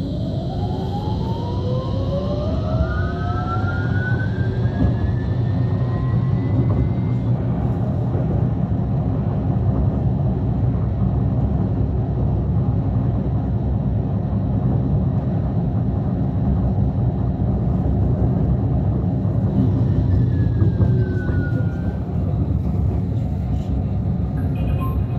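Bombardier Incentro tram heard from inside the car, its traction drive whining and rising steadily in pitch as it accelerates away, over a low rumble of wheels on rail. The whine then gives way to a steady rumble at cruising speed, with a short falling whine about twenty seconds in as it begins to slow.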